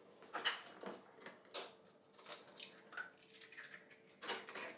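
Eggs being cracked with a table knife over a plastic mixing bowl: a few sharp taps and clicks of the blade on the shells, the loudest about one and a half seconds in and again near the end.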